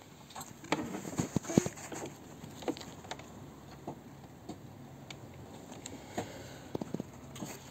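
Handling noise from a phone being held up and moved: scattered light knocks, clicks and rustles, a finger brushing near the microphone, over a faint low hum.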